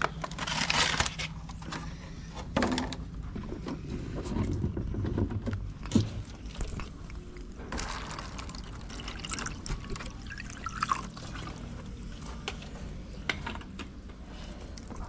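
Water pouring from a large plastic drinking-water bottle into a shallow clear plastic tray, around the middle. Before it come rustles and sharp knocks of thin plastic containers being handled and set down.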